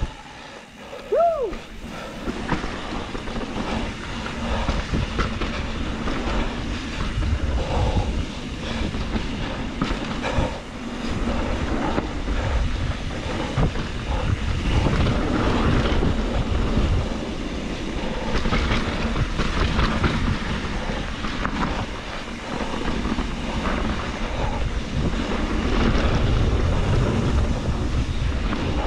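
2021 Trek Slash 7 mountain bike riding down a dirt flow trail: a constant rumble of tyres on dirt, with the bike's chain and parts rattling over the bumps. A short squeal comes about a second in.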